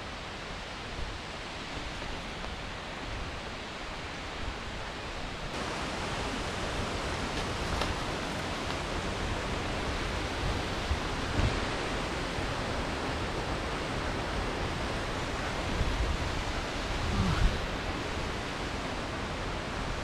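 Steady rushing of a monsoon waterfall, growing louder about five seconds in, with a few low bumps near the end.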